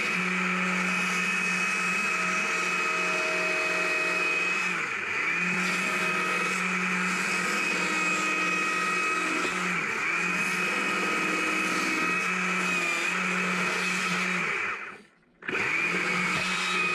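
Small two-stroke carving chainsaw running at full throttle, cutting down into a small frozen log. The engine note sags briefly a few times as the chain bites, and the sound breaks off for a moment near the end.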